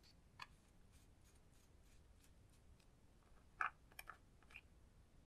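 Faint handling sounds from makeup being worked over slime: small clicks from a lipstick tube, then a plastic spatula scraping and tapping a gold makeup piece, with the sharpest click about three and a half seconds in.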